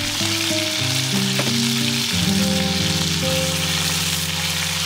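Steady sizzling hiss of food frying in a pan, under background music with sustained low notes that change every second or so.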